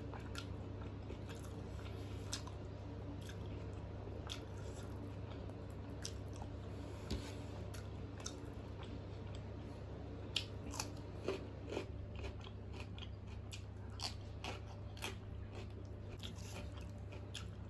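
Close-miked eating by hand: chewing and crunching raw onion slices and rice with mutter paneer, with scattered sharp crunches and clicks, several close together about two-thirds of the way in. A steady low hum runs underneath.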